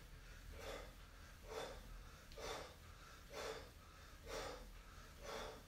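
A man breathing hard in a steady rhythm, six faint puffing breaths about one a second, in time with each rep of seated kick-outs.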